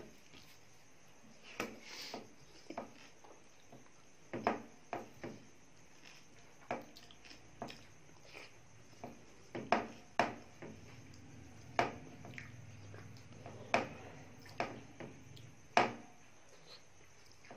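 Dal and rice being eaten by hand: many short, irregular wet smacks and squelches from chewing and from fingers mashing the rice on the plate.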